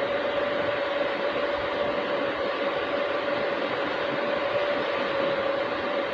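A running machine: a steady, even hiss with a constant mid-pitched hum that does not change.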